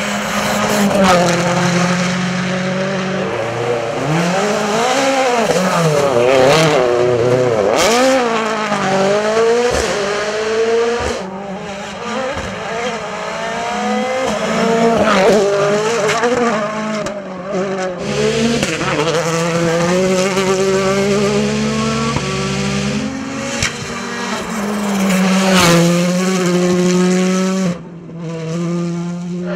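World Rally cars' 1.6-litre turbocharged four-cylinder engines, an M-Sport Ford Fiesta RS WRC among them, revving hard past at speed. The engine pitch repeatedly climbs and drops through gear changes, with a few sharp cracks.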